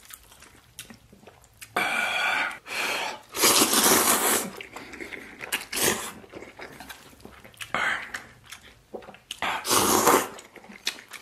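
A person slurping instant noodles in three long, loud slurps, about two, three and a half and nine and a half seconds in, with quieter chewing in between.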